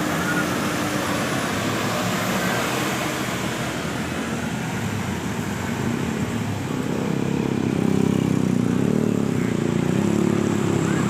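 Bus engine running with outdoor traffic noise, growing louder about seven seconds in as the bus draws close.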